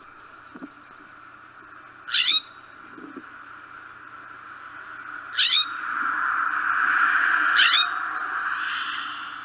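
California scrub jay calling three times: short, harsh, rising rasps a few seconds apart, over a steady background noise that grows louder in the middle.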